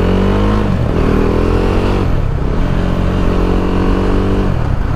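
KTM 390 Adventure's single-cylinder engine pulling away under the rider, its pitch climbing and then dropping back three times as it shifts up through the gears, with wind noise on the helmet microphone.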